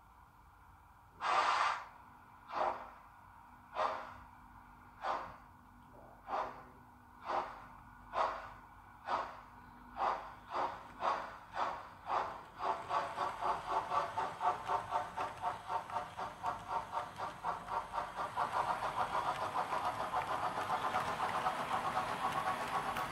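Steam exhaust chuffs from a Märklin model steam locomotive's sound decoder as the train pulls away. The first chuffs come more than a second apart, then quicken steadily until they run together into a rapid beat about halfway through, as the locomotive gathers speed.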